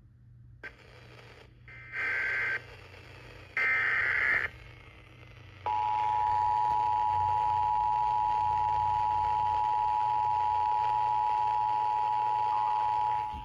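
Emergency Alert System tones: two short screechy bursts of digital SAME header data, then the steady two-tone EAS attention signal held for about seven and a half seconds. Together they mark the start of a new emergency alert.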